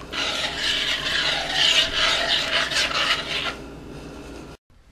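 A metal spoon stirring soup in a stainless steel stockpot, scraping against the pot in repeated strokes. The stirring stops about three and a half seconds in.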